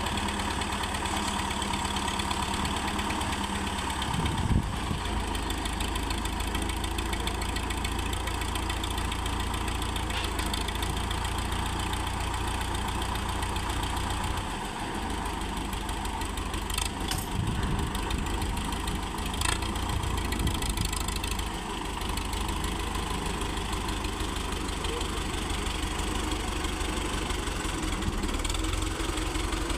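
Belarus tractor's diesel engine running steadily, with a brief knock about four and a half seconds in and a few faint clicks later.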